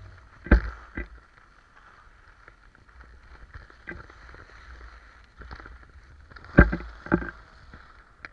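Edges sliding and carving on packed snow down a ski run: a steady scraping hiss with a low wind rumble on the microphone, broken by a few sharp knocks, the loudest about half a second in and again about two-thirds of the way through.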